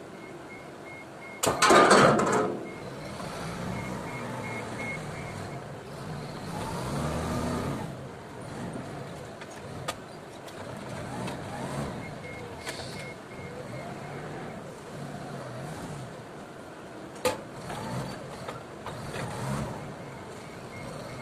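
Forklift with a paper-roll clamp at work: its engine runs and rises in pitch around the middle as it handles the rolls, while its reverse alarm beeps rapidly in spells. There is a loud short burst of noise about two seconds in and a sharp click near the end.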